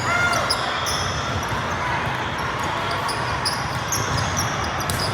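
Indoor volleyball play echoing in a gym hall: the ball thudding off hands and the floor, with short high sneaker squeaks on the court scattered throughout and a brief shout right at the start.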